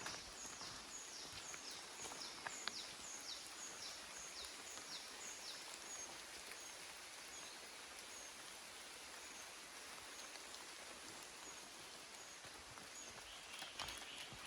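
A bird calling a fast series of high, downward-sliding notes, about two or three a second, which turn fainter and sparser after about five seconds, over a steady forest hiss. A few soft footsteps on the track.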